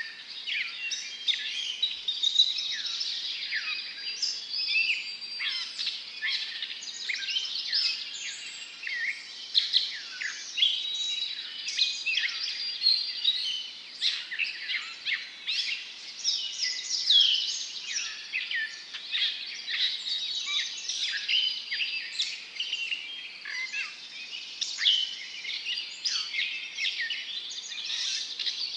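Natural ambience of many birds calling and singing at once: a dense, unbroken chorus of short chirps and quick falling whistles.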